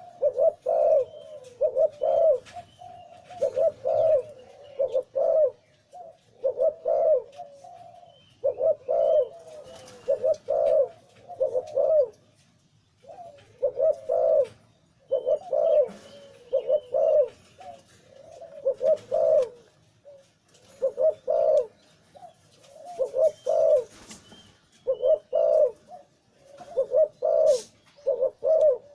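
Male zebra dove cooing with a big, full voice. It gives short bursts of rapid, rolling coo notes, repeating every second or two with a few brief pauses.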